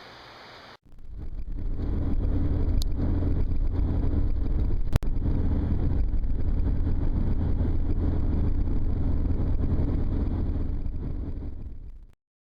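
Steady low rumble of a running motor vehicle, with a sharp click about five seconds in; it fades out near the end.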